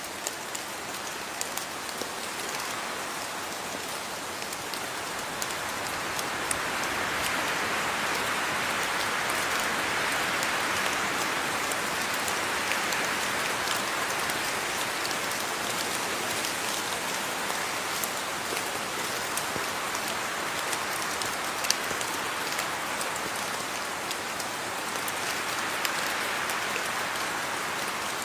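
Steady rain falling, a continuous hiss with scattered sharp drop ticks, growing a little heavier about six seconds in.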